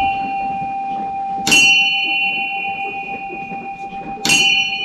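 A metal bell struck twice, about three seconds apart, each strike ringing on long with several high overtones over a lower steady tone. The ring of an earlier strike is already sounding at the start.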